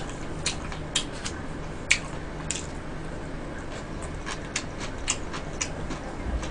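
Close-miked eating sounds: soft, irregular clicks, a few a second, of chopsticks picking at food on a plate and of wet chewing, over a low room hum.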